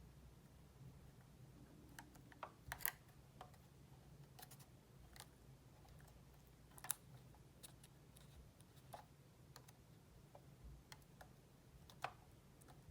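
Near silence: room tone with a low steady hum and scattered faint small clicks and taps, the sharpest about three and seven seconds in.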